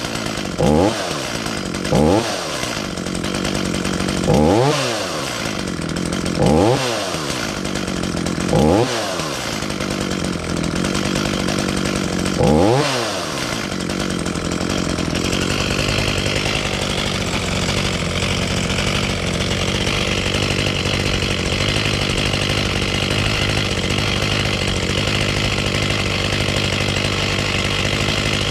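Echo CS-440 two-stroke chainsaw warming up: six quick throttle blips, each revving up and dropping back, then a steady idle from about halfway through.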